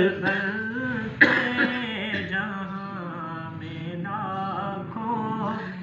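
Unaccompanied male voice chanting a naat (Islamic devotional poem) in long, wavering held notes, softer than the full recitation around it. There is a short sharp sound about a second in.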